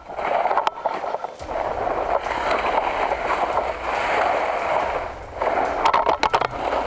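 Dry leaves and branches rustling and scraping close to the microphone as a player pushes through dry brush, with a few sharp clicks near the end.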